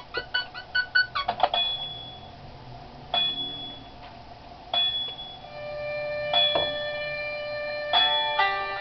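A computing machine's electronic sound effects: a quick run of short bleeping tones for about a second and a half, then single chime-like tones about every second and a half that ring on, several sounding together near the end.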